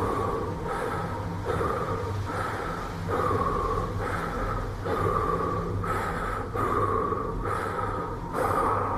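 Rhythmic breathing sounds, about one breath a second, over a steady low hum.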